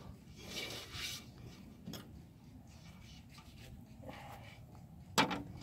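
Quiet rubbing and handling noise as a chicken carcass is worked by hand on a glass-topped table, with a couple of sharp knocks, the loudest near the end.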